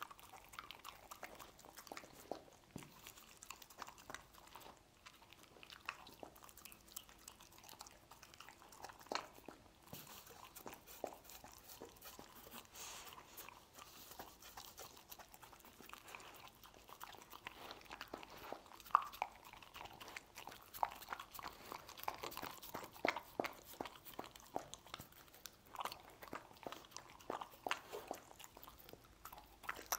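A dog chewing and biting pieces of stir-fried meat, an irregular run of short clicks and crunches of its teeth and jaws that comes more often in the second half.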